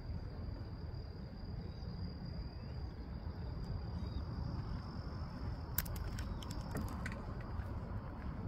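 A steady, high-pitched insect trill over a constant low rumbling noise; the trill fades out about seven seconds in, and a few sharp clicks come just before it.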